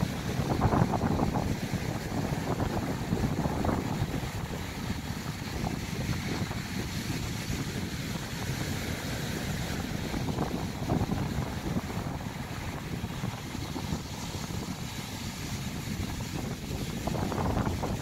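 Sea waves breaking and washing up on a sandy beach in a continuous rush of surf, swelling as bigger waves break about a second in, near four seconds and again near the end.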